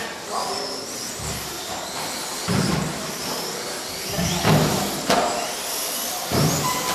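Several 1/18-scale electric RC off-road cars racing, their motors whining in high glides that rise and fall with the throttle. Sharp knocks about two and a half, four and a half, five and six and a half seconds in.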